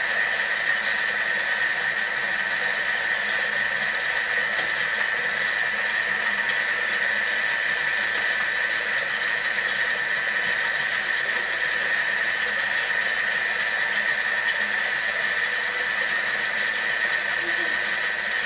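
Thermomix food processor running steadily at speed 4, blending the green tapenade, with one strong high tone.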